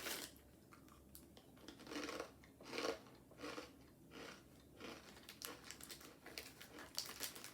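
A person chewing crunchy garlic bread chips, with a soft crunch on each bite, repeating at an uneven pace.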